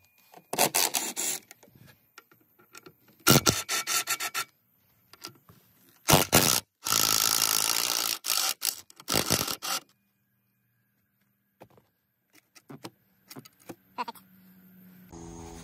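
Cordless power driver with a socket bit running in short bursts of a second or so, with one longer run, backing out the rusty bolts that hold a pontoon boat seat pedestal base. It is followed by a few light clicks of loosened hardware.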